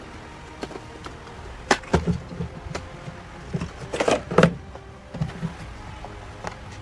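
A boxed vinyl figure being handled and unpacked: scattered clicks and scrapes of cardboard and plastic packaging, with a louder rustling scrape about four seconds in as the box is lifted out.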